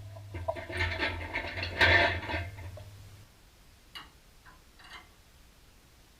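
Workshop handling noise: clattering and scraping with a low steady hum for about the first three seconds, then a few light knocks.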